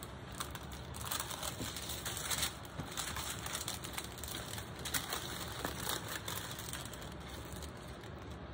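Clear plastic protective film on a diamond painting canvas crinkling as the canvas is handled, a continuous run of irregular small crackles.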